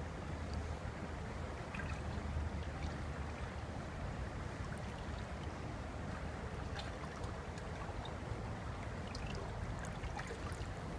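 Steady rush of water from a small river waterfall, an even noise with a low rumble under it. A few faint ticks come through in the second half.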